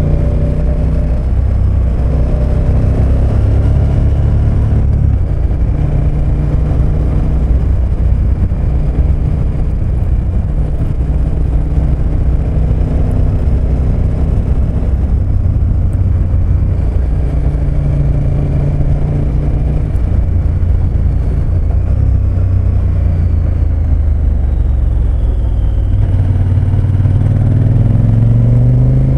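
KTM 1290 Super Adventure S's V-twin engine running while under way, over a steady rush of wind noise. The engine pitch shifts several times, then rises as the bike accelerates near the end.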